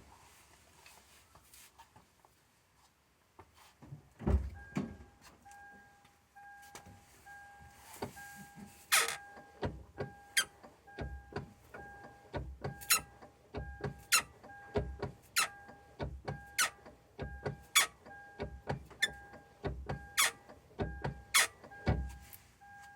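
Clutch pedal of a Toyota Altezza six-speed manual pressed repeatedly, giving a sharp squeak with each stroke about once a second. The squeak comes from the clutch release fork binding at its pivot for lack of grease, as the owner judges. Behind it, an electronic beep repeats about twice a second.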